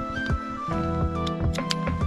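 Background instrumental music: sustained notes that change pitch every half second or so, with a few light percussive ticks.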